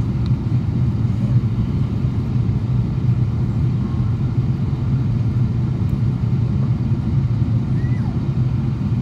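Steady low roar of cabin noise inside a Boeing 777-200 in flight: engine drone and rushing air heard through the fuselage.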